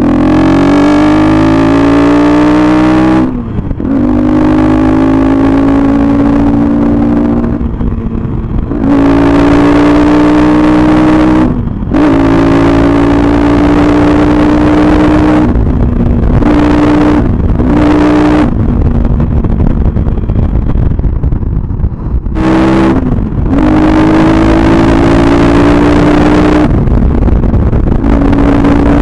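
Motorcycle engine heard from the rider's seat at road speed, its note climbing under throttle and dropping away several times as the throttle is eased or a gear is changed, with a longer let-off a little past the middle. Wind rushes over the microphone throughout.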